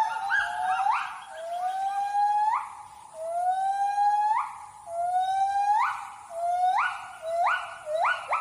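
Gibbon calling: a loud series of long whooping notes, about one a second, each sliding upward and ending in a sharp upswing.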